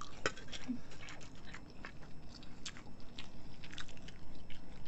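Two people chewing mouthfuls of noodles close to the microphone, with irregular small wet clicks and smacks from their mouths.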